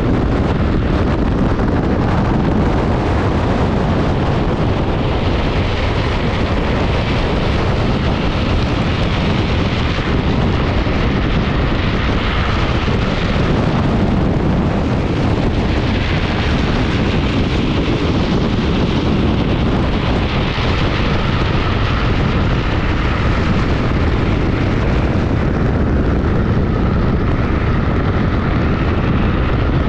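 Wind rushing and buffeting hard over an action camera's microphone as a drift trike speeds downhill, with the rumble of its wheels on the asphalt beneath. A hiss rises and falls every few seconds.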